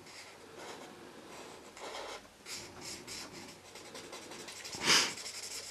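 Winsor & Newton Pro Marker nib rubbing and scratching on paper as a swatch is coloured in, in soft repeated strokes. About five seconds in, a short, loud breath close to the microphone.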